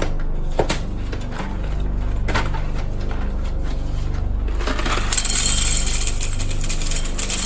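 Dry ziti pasta being poured from its box into a bowl. A few separate clicks come first, then a dense rattling clatter from about five seconds in. A steady low hum runs underneath.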